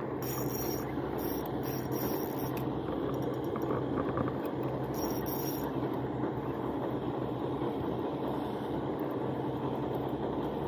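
Spinning reel being cranked steadily, winding in line against a hooked giant freshwater prawn.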